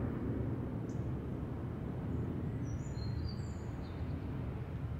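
Steady low outdoor background rumble, with a few faint high bird chirps about a second in and again in the second half.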